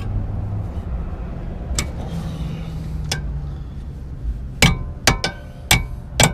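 Sharp metallic clinks and knocks of hand tools on car parts, about six scattered strikes, over a low steady hum.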